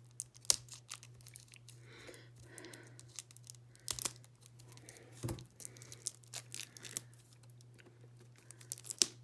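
Clear plastic shrink wrap on a card deck being slit with scissors and peeled off by hand: irregular crinkling and tearing, with sharp crackles that are loudest about half a second in and again near the end.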